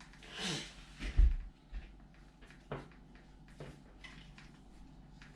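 Slime and its container being handled on a table: a brief soft rush, then a dull thump about a second in, followed by a few light clicks.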